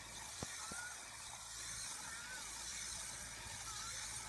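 Traxxas T-Maxx nitro radio-controlled monster truck's small engine buzzing at a distance. Two faint clicks come about half a second in.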